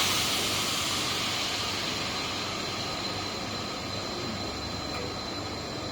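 Oxygen assist gas hissing out of a Mazak STX612 MK3 laser cutter's gas line, fading slowly and evenly as the pressure bleeds off after the oxygen is shut. A faint steady high tone runs underneath.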